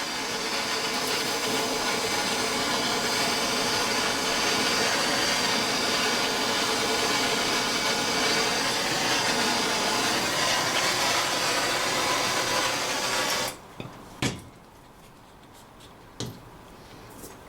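Gas blowtorch flame burning with a steady hiss while it heats a 15mm copper pipe fitting so the solder melts and is drawn into the joint. The flame cuts off suddenly about thirteen and a half seconds in, followed by two light knocks.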